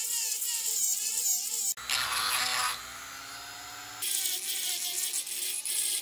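HiLDA rotary tool with a cutting bit grinding away the inside of a PVC pipe fitting: a high motor whine that wavers in pitch as the bit bites into the plastic, with a hissing, scraping grind. The grinding turns harsher about two seconds in and its sound changes again near the middle.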